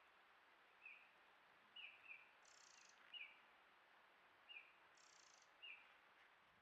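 A bird gives faint short chirps, about seven at uneven intervals. Two brief, higher buzzy hisses come about a third of the way in and again near two-thirds.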